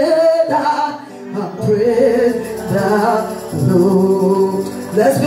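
Gospel worship singing, a woman's voice leading through the microphone with instrumental backing, holding long wavering sung notes.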